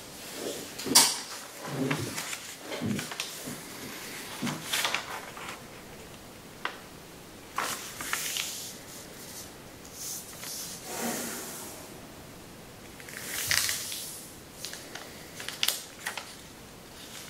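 A large sheet of thin Kami origami paper being folded in half diagonally and creased by hand: irregular rustles, crinkles and sliding swishes as fingers run along and press the fold flat. A sharp crackle about a second in is the loudest.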